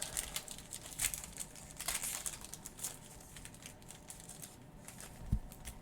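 Wrapper of a trading card pack crinkling as it is torn open, with scattered sharp clicks from handling, and a couple of soft thumps near the end.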